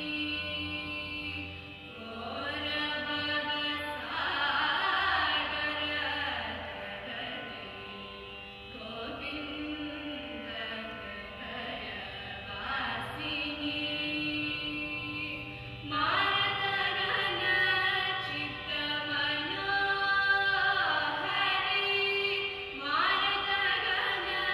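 Two women singing in Carnatic style, in long, ornamented sung phrases with short pauses between them, over a steady drone.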